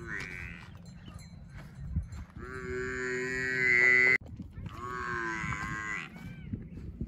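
Tethered cattle mooing: three high-pitched moos, a short one at the start, a long one about two and a half seconds in that gets louder and cuts off suddenly, and another about five seconds in.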